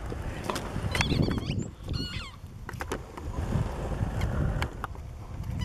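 A squeaky rubber toy ball being squeaked by a dog chewing it through its gift wrapping. There are two short, wavering squeaks, about one and two seconds in, over a low rumble.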